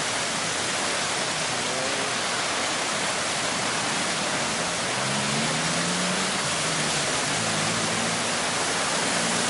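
Steady, dense rush of water from a storm-flooded street, heavy and even throughout. A low hum comes in about halfway through.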